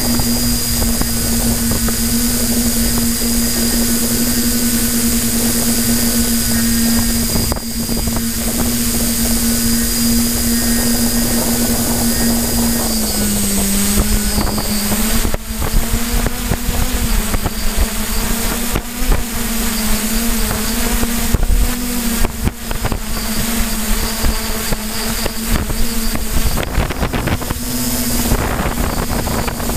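Electric motors and propellers of an F550 hexacopter drone, heard from its onboard camera, whining steadily at one pitch. About halfway through, the pitch dips and then wavers as the drone manoeuvres, and irregular gusts of wind hit the microphone.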